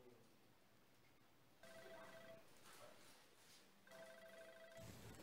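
Near silence broken twice by a faint ringing tone of steady pitch, each lasting under a second, about two seconds apart. Near the end a louder, even noise starts.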